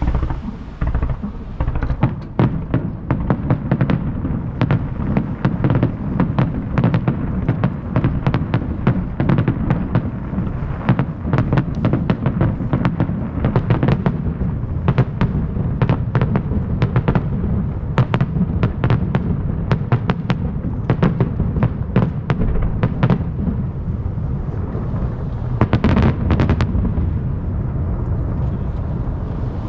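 A fireworks barrage fired over the sea: dozens of sharp shell bursts over a continuous low rumble of booms, echoing back from the surrounding hills. The bursts thin out near the end.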